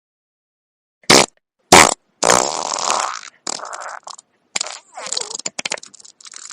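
Fart sound effects: after a second of silence, two short loud farts, then longer farts broken into several stretches that run on to the end.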